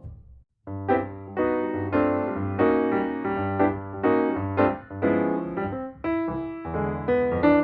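Background music: a piano-like keyboard playing a rhythmic run of struck notes and chords. It starts about half a second in, after a brief gap that follows the end of a held, sustained tone.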